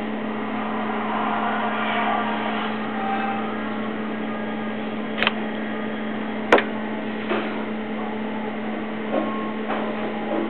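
Powered-on game console's cooling fan running with a steady hum, with a few sharp clicks about five and six and a half seconds in.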